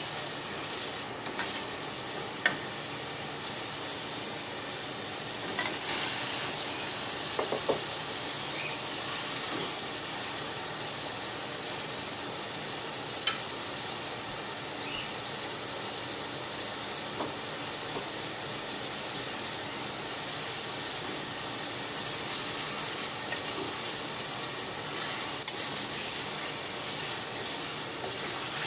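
Spice paste and small puti fish sizzling steadily in a metal pot. A wooden spatula stirring against the pot adds scattered light scrapes and ticks.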